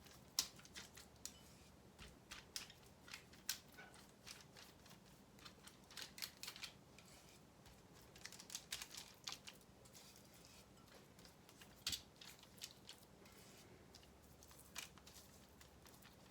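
Faint, irregular soft clicks and taps of a basting brush dabbing and spreading sauce onto raw chicken thighs in a pan.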